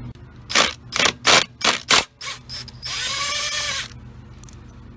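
Cordless impact driver backing out a 10 mm bolt: several short, sharp bursts in the first two seconds, then one steady run of the motor for just under a second about three seconds in.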